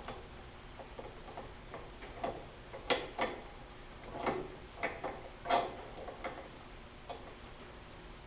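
Irregular light clicks and knocks of small parts and hand tools being handled during reassembly of a lathe's motor drive. The clicks are scattered, with a busier run from about two to six and a half seconds in.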